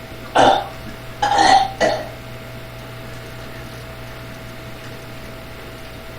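A person burping three times in about two seconds, the middle burp the longest, from the gas of a large bottle of carbonated Dr Pepper soda.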